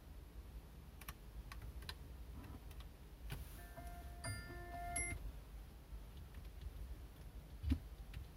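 Light clicks of fingertip taps on a car stereo's touchscreen, followed a few seconds in by a short electronic chime of several steady tones from the head unit, and a dull thump near the end, over a low steady cabin hum.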